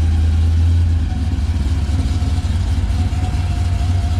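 Whipple-supercharged 2011 Chevrolet Camaro SS V8 running at low speed with a deep, loud rumble as the car creeps past. A thin steady whine joins the rumble about a second in.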